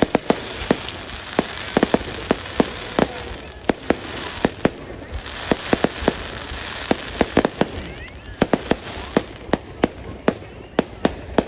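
Fireworks going off: sharp bangs, irregular and several a second, over a steady crackling hiss.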